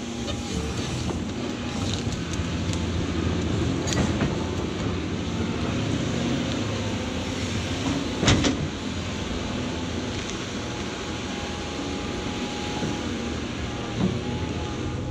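Caterpillar 349F excavator's diesel engine running steadily under load while the machine digs out and lifts a large stump. Two sharp knocks stand out, one about four seconds in and a louder one a little past eight seconds.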